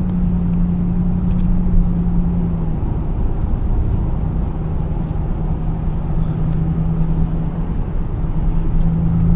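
Car engine and road noise heard from inside the cabin while driving: a steady low drone whose pitch drops slightly about three seconds in, with no horn sounded.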